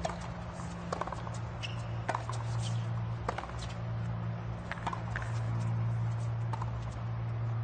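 Tennis ball struck by rackets and bouncing on a hard court during a rally: sharp pops about every second or so, over a steady low hum.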